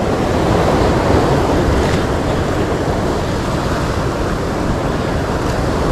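Wind blowing across the microphone over the wash of sea waves: a loud, steady rushing noise with a rumbling low end.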